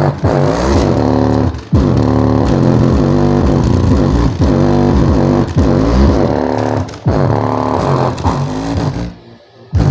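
Loud bass-heavy music played through an 8-inch 2-ohm subwoofer driven by a Heng Peng 2.1 amplifier board as a sound test. It drops out for under a second near the end, then comes back.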